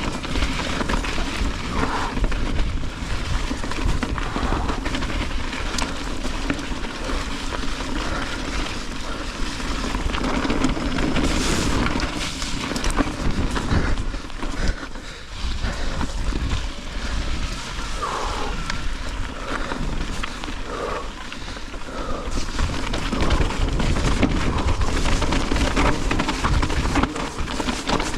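Mountain bike descending a wet, rocky trail: a steady rush of wind on the microphone with low rumble, and the tyres and bike rattling and knocking over rock and dirt.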